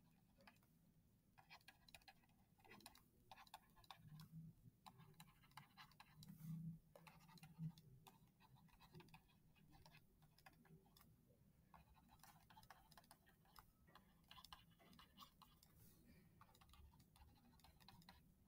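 Near silence with faint, irregular ticks and scratches of a stylus tapping and stroking across a touchscreen as words are handwritten.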